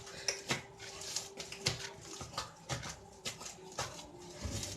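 Hands kneading soft batbout (Moroccan flatbread) dough in a bowl: irregular soft slaps, squelches and knocks, with a faint steady hum underneath.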